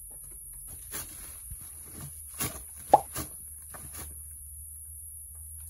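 A run of about eight irregular knocks and taps over some three seconds, the loudest with a short ring about three seconds in, then they stop. A steady high hiss runs underneath.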